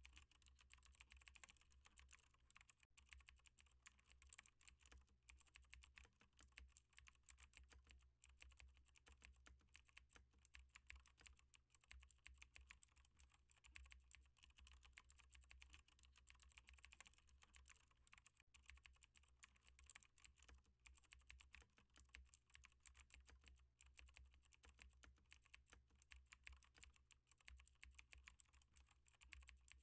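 Quiet, continuous rapid typing on a computer keyboard: dense, irregular key clicks with no pauses.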